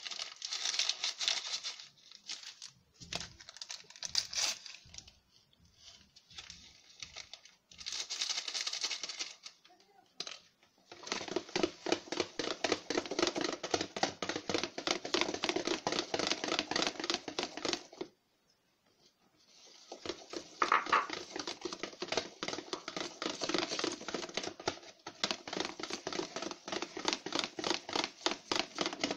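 Hand mixing flour into a wet cake batter in a plastic bowl: rapid, closely spaced strokes, in short spells at first, then in two long runs with a break of about two seconds between them.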